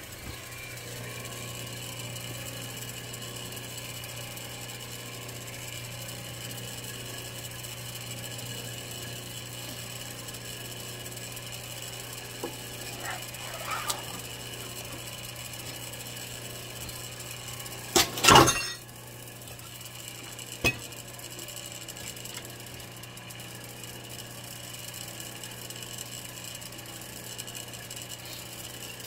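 Herman Schwab 20-ton clicker press running with a steady hum, with one loud clunk a little past halfway and a sharp click about two seconds later.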